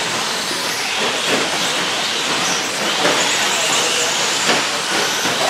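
Electric RC short-course trucks with 13.5-turn brushless motors racing on a dirt track. The motors whine, the tyres hiss, and there are a few knocks from the trucks landing or hitting the track.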